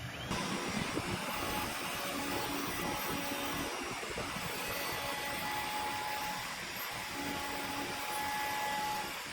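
CNC router spindle running steadily with a 15-degree V-bit carving into hardwood, an even rushing machine noise.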